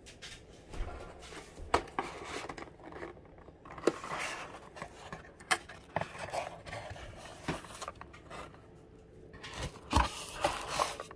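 Cardboard mailer box being opened by hand: the lid and flaps scraping and flexing, with several sharp taps and snaps spread through.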